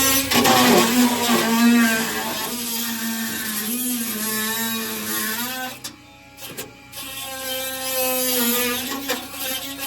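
Electric drill whining as it bores out a spot weld in the Jeep's sheet-metal toolbox, its pitch wavering under load, briefly stopping about six seconds in and then starting again.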